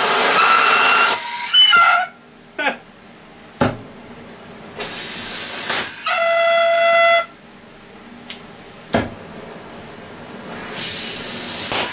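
Cutting torch hissing in short bursts about a second or two long, one of them with a steady whistle for about a second, and a few sharp clicks in the quieter gaps between.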